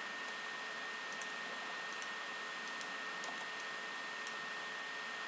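Computer mouse clicking about half a dozen times, several clicks in quick pairs, over a steady recording hiss with a faint steady high tone.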